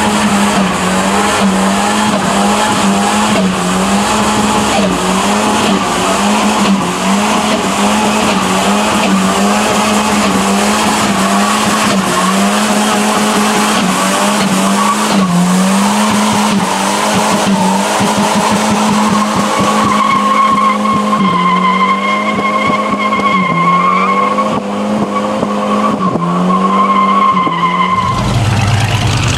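Volvo estate car doing a burnout: the engine is held at high revs, wavering up and down, while the spinning rear tyres skid and screech. A sharper, high-pitched tyre squeal comes in over the second half.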